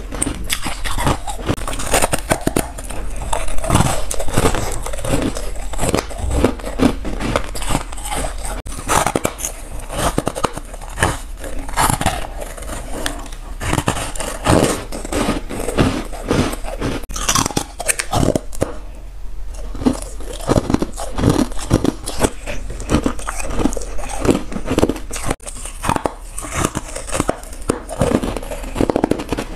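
Close-miked biting and chewing of a chunk of white, frosty freezer ice: many crunches in quick succession, with short pauses between bites.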